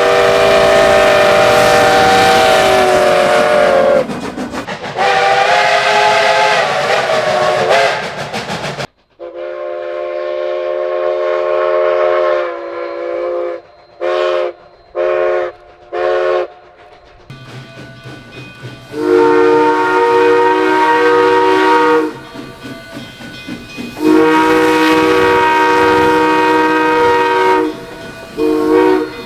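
Multi-chime train whistles blowing chords in three separate recordings. First come two long blasts whose pitch sags slightly, then a long blast followed by four short toots, then two long blasts and a short one near the end.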